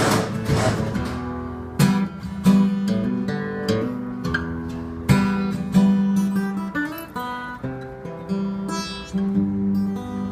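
J-45-style steel-string acoustic guitar being strummed and picked: sharp chord strums every second or two, each left ringing, with single picked notes in between. The guitar is being test-played with a temporary brass false saddle and the string action still set high.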